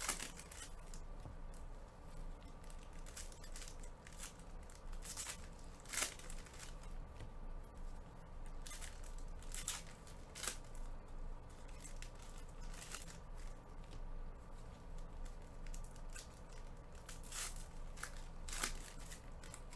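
Foil wrappers of Bowman trading-card packs crinkling and tearing as the packs are opened by hand, in irregular sharp crackles.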